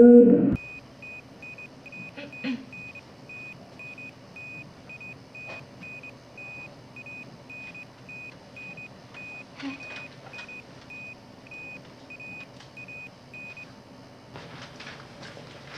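Hospital heart-monitor beep sound effect: a short high electronic beep repeating at an even, quick rate, stopping about 14 seconds in.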